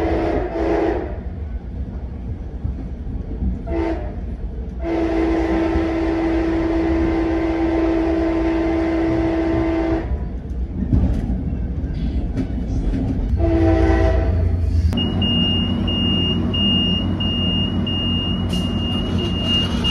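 Nathan Airchime K5LA five-chime train horn heard from inside the passenger car, over the low rumble of the moving train. It sounds a blast that ends about a second in, a brief toot, a long blast of about five seconds and then another short blast. After that a high ding repeats rapidly until the end.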